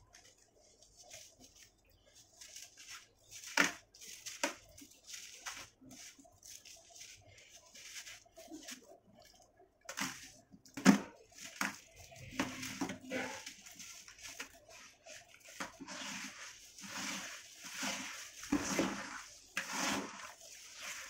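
Hands crumbling gritty sand-cement lumps and squeezing wet sand in a plastic tub of water: irregular gritty crunches, squelches and splashes, busier in the second half, with a sharp knock about eleven seconds in.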